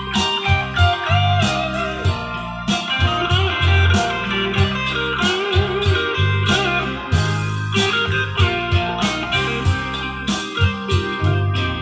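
Recorded music playing through Tannoy Berkeley loudspeakers: a guitar-led track over strong bass notes and a steady drum beat.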